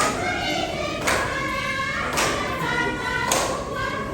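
Tharu folk dance song: a group of voices singing together over a sharp, regular beat about once a second.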